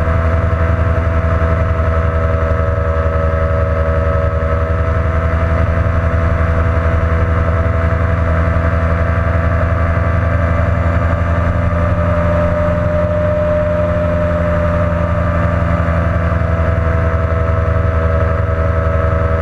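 Ultralight aircraft's engine and propeller droning steadily in cruise flight, its pitch sagging slightly about two-thirds of the way through and then recovering.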